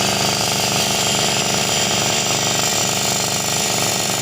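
A power tool running steadily without a break, a low mechanical hum under a high, hissing grind.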